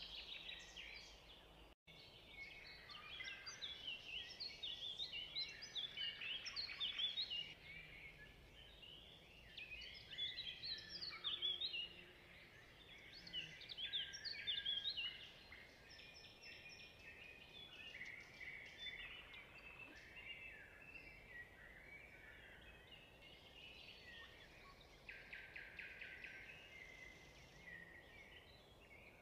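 Small birds chirping and singing, many short, high calls overlapping, busiest in the first half.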